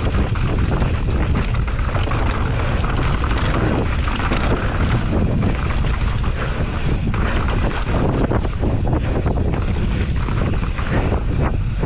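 Wind buffeting a microphone: a loud, continuous low rumble that flutters unevenly with the gusts.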